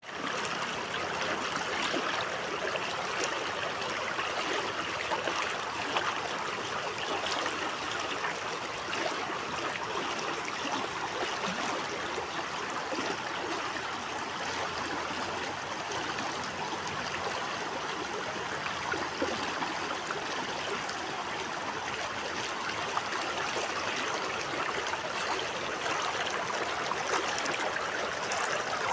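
River water babbling and trickling over stones, a steady even rush.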